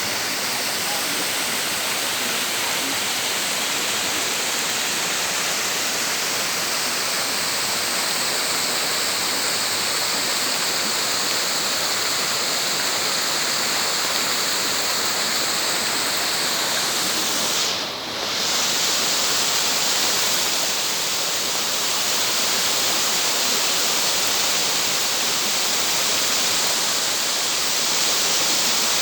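Waterfall water rushing in a steady, even hiss, dipping briefly about two-thirds of the way through.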